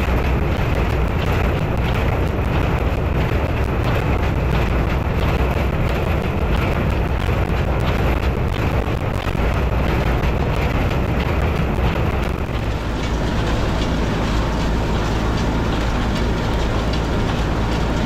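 Massey Ferguson 178 tractor running steadily, pulling a New Holland Hayliner 317 small square baler that is working as it picks up and bales hay. The low engine hum becomes steadier and more even about twelve seconds in.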